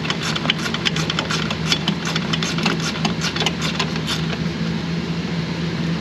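Hand ratchet clicking in quick irregular runs as the bolts holding a suspension height sensor to the car body are run in; the clicks thin out about four seconds in. A steady low hum runs underneath.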